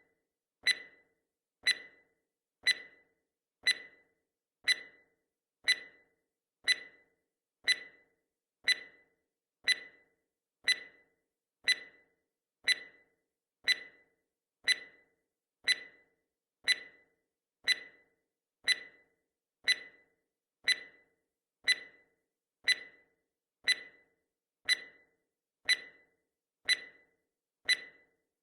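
Countdown timer's clock-tick sound effect: one short, sharp tick each second, with silence between.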